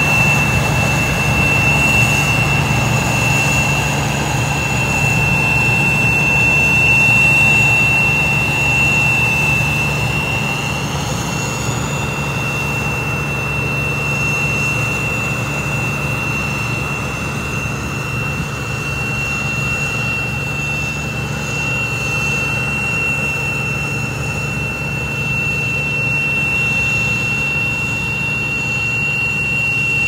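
New Holland Clayson combine harvester running as it moves off: a steady engine drone with a high, steady whine over it, growing slightly quieter as the machine pulls away.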